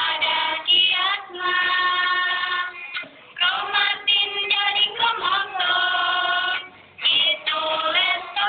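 A small group of students singing a song together to acoustic guitar accompaniment, in sung phrases of long held notes separated by short breaks.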